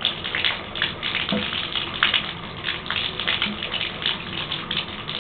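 Water running from a bathtub faucet into the tub, with many small irregular splashes.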